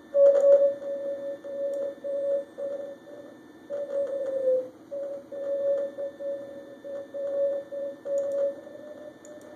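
A Morse code (CW) signal on the 40-meter band, received by a SoftRock Ensemble II software-defined radio: a single tone keys on and off in dots and dashes over band hiss. Just after four seconds the tone slides briefly down in pitch.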